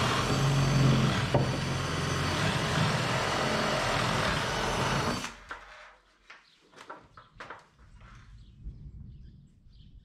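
Cordless drill running under load as its bit bores through plywood, for about five seconds, then stopping suddenly. A few light knocks and clicks of handling follow.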